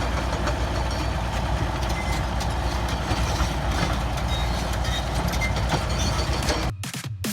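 Heavy diesel engine of a motor grader working, a steady low rumble with mechanical rattle, pushing stones. The sound cuts off abruptly near the end.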